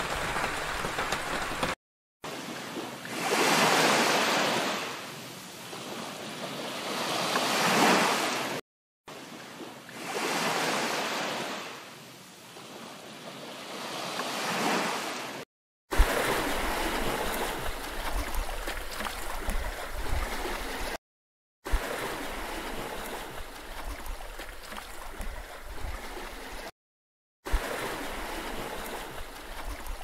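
Sea surf: waves swelling and falling away in slow surges a few seconds apart, then a steadier rush of water with a low rumble. The sound cuts out completely for a moment five times.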